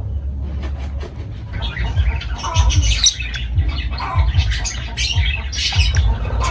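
Lovebirds chattering in rapid short squawks and chirps, getting busier about a second and a half in, with low thuds underneath.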